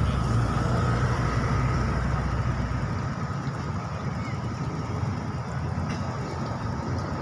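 An engine running at idle: a low steady rumble that falls away about three seconds in.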